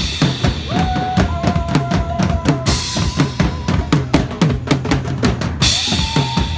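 Music with a fast, heavy drum-kit beat, with kick and snare hits close together. Cymbal crashes come at the start and about three seconds in, and a melody of held tones runs over the drums.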